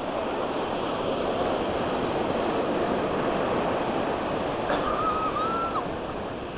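Ocean surf breaking and washing up the beach, a steady rushing noise; a brief thin high tone sounds about five seconds in.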